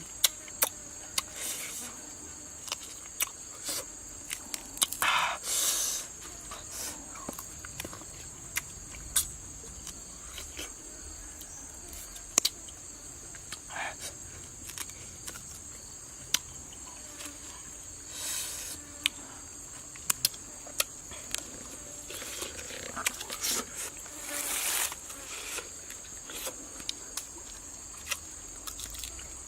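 Insects chirring steadily in a high band, with scattered sharp clicks and a few short rustling bursts.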